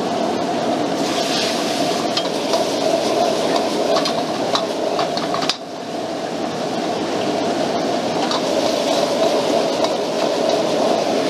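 A powerful gas wok burner runs steadily while stir-fried vegetables sizzle in the wok. A metal ladle clinks and scrapes against the wok, most often in the first half, and the sound briefly drops about five and a half seconds in.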